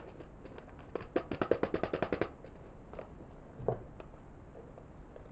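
A small paper seed packet being opened and handled: a quick run of dry crackling ticks for just over a second, then a few single clicks.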